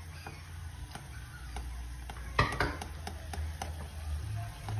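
Instant noodles being stirred with a plastic spatula in a small pot of boiling water, the spatula tapping lightly and irregularly against the pot, with one sharper knock about halfway through. A low steady hum runs underneath.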